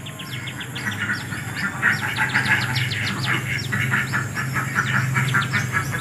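Bar-winged prinia (ciblek batik) singing: a long run of quick, sharp down-slurred notes, about four a second.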